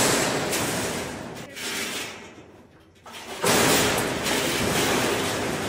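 Metal gates and panels of a bison handling alley banging and rattling. A loud bang at the start rings down, a smaller knock follows about a second and a half in, and another loud bang about three and a half seconds in rattles on before fading.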